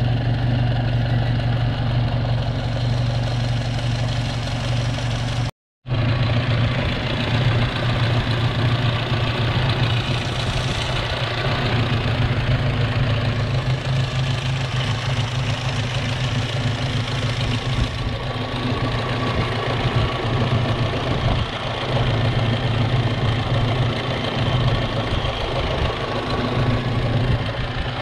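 Alfa Romeo Giulia Super's four-cylinder Nord engine idling steadily.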